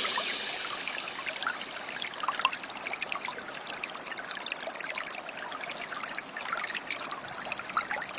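Small stream trickling and babbling, a steady splashing with many small irregular gurgles and drips.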